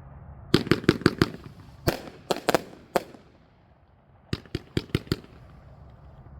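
Winda Fireworks Presto Chango 30-shot fan cake firing in sharp cracks. A quick volley of about five shots comes within the first second or so, then four more spaced shots. After a short lull, another quick volley of five follows.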